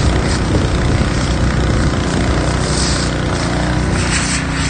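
A steady low engine drone under a constant hiss.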